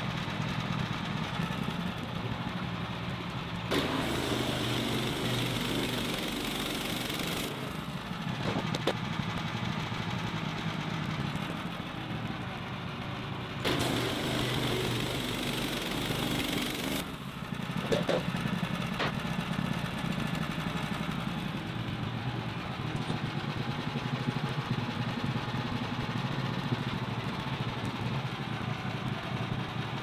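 Woodland Mills HM130 Max sawmill's engine running steadily. Two stretches of louder hissing noise come about four and fourteen seconds in, and a few short knocks are heard.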